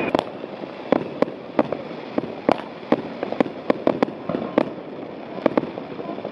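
Fireworks going off close by: an irregular run of sharp bangs and cracks, several a second, with a steady hiss between them.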